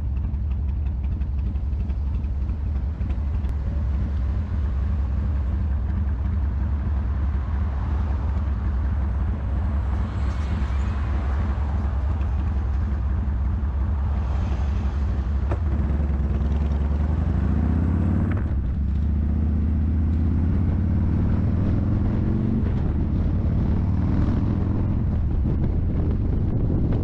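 Motorcycle engine idling steadily, then pulling away about halfway through, its pitch rising through the gears with a short drop at each upshift.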